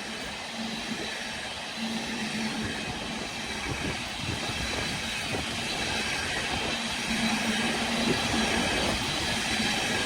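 Wagons of an intermodal container freight train rolling past, with a steady noise of wheels on rail and a low hum that comes and goes.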